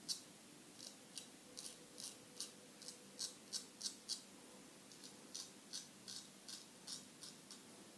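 Straight razor scraping through stubble in short, quick strokes, about three a second with brief pauses, over a shave-cream lather that gives little glide.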